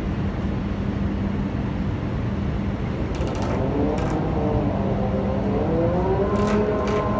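Steady machinery hum over rushing noise. About three seconds in, a second motor's whine joins, climbs in pitch between about five and six and a half seconds and then holds steady, with a few light clicks.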